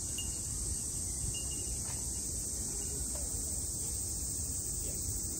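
Insects droning steadily in a high, even buzz, with a low rumble underneath.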